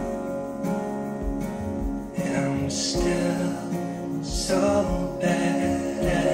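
Slow pop ballad music between sung lines, with guitar and a steady low beat.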